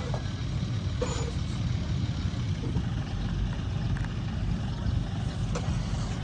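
Heavy diesel machinery running with a steady low rumble, with a few faint knocks on top.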